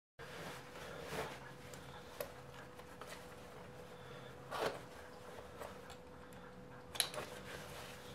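Quiet room tone with a steady faint hum, broken by a few soft clicks and rustles, the sharpest about seven seconds in.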